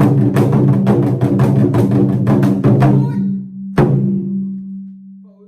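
Taiko drums struck in a fast, even run of strokes that stops a little after three seconds in, then one final heavy stroke whose drumhead ring fades away over the next second or two: the end of a piece.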